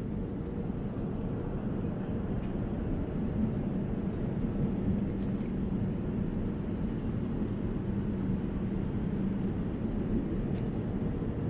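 Steady low rumble and rush of a Boeing 787-9's cabin in cruise flight, with a faint steady hum underneath.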